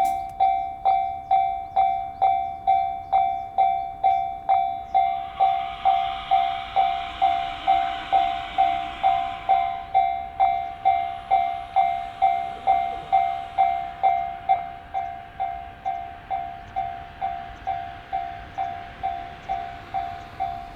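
Japanese railway level-crossing warning bell dinging evenly, about two dings a second. A train passes over the crossing, its rushing wheel-and-rail noise strongest from about five to ten seconds in. The bell rings somewhat quieter in the later part.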